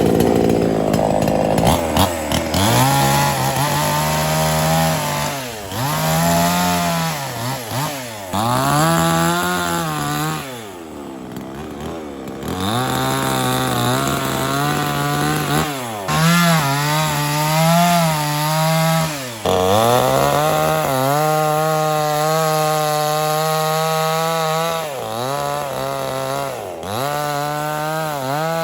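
Small petrol chainsaw cutting through thick logs. The engine speed rises and sags over and over as the chain bites into the wood and is eased off, with a brief drop about ten seconds in.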